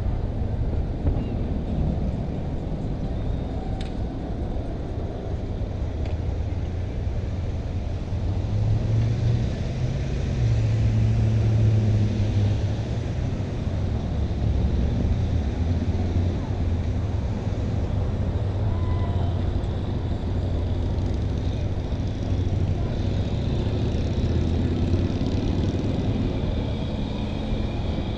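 Road traffic: cars driving through an intersection, a steady low engine and tyre rumble that swells about a third of the way in and holds.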